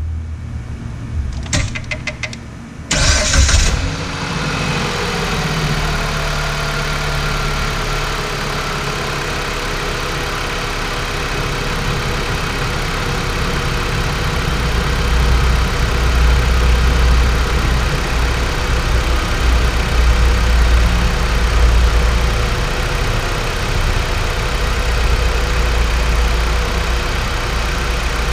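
Dodge Journey's engine being started: a few clicks, then it fires up about three seconds in. Its speed drops over the next few seconds and it settles into a steady idle, with a deeper hum swelling in the middle.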